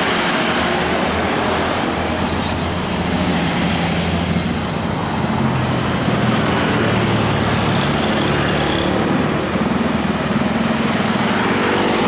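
Tour bus diesel engine running as the bus passes close by and pulls away, mixed with steady road traffic noise and motorcycles passing.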